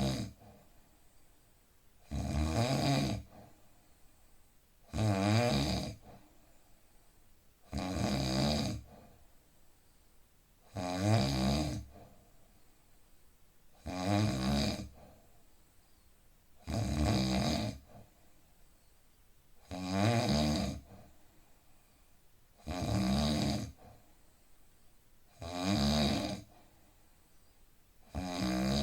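A man snoring in deep sleep, in a steady rhythm: one snore about every three seconds, each lasting about a second, with quiet gaps between.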